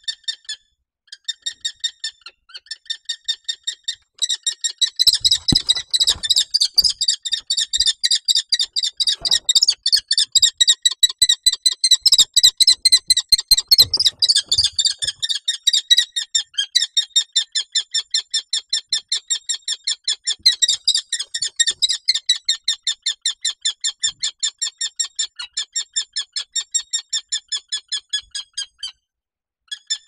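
Common kestrel giving a long, fast series of shrill repeated kee-kee calls, with several short pauses in the first few seconds and a stop shortly before the end. A few low thumps and scrapes of the bird moving about sound between about five and fifteen seconds in.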